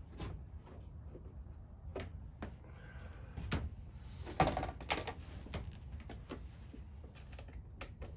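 Small clicks, taps and knocks of bolts being fitted by hand into an air compressor's fan shroud, with a louder knock about four seconds in. A low steady hum runs underneath.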